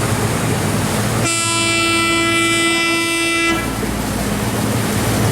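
Cargo barge's horn sounding one long blast of about two seconds, the warning given before entering a blind river bend, over the steady drone of the barge's engine.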